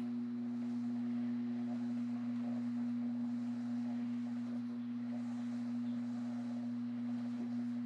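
Steady electrical hum at one constant pitch, with a fainter, lower hum beneath it, from mains-powered equipment running in the shop.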